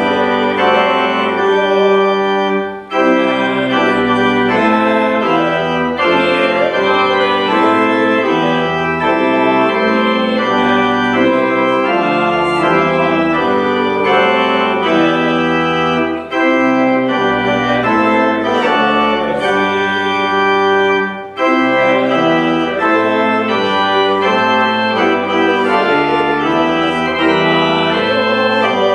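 Church organ playing a slow piece of held chords, with three short breaks between phrases.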